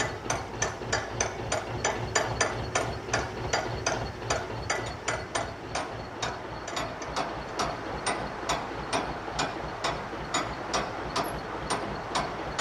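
Ratchet pawl of a canal lock's paddle gear clicking steadily as the paddle is wound up with a windlass, at about four clicks a second, slowing a little toward the end.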